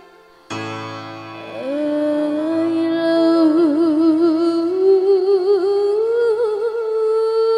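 Live dangdut song: accompaniment chords come in about half a second in after a brief lull, then a woman's voice slides up into long held notes with vibrato, climbing step by step.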